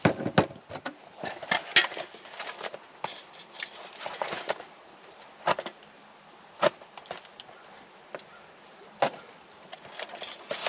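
Cardboard box being opened by hand: irregular rips, crinkles and sharp knocks of packaging, the loudest right at the start.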